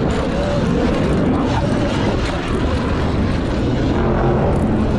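Wind rushing over the microphone of a moving Surron electric dirt bike, with the motor's faint wavering whine underneath; a steadier engine tone comes in near the end.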